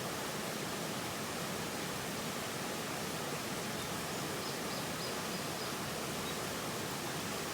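A steady, even rushing noise with no change in level, and a few faint short high peeps about midway through.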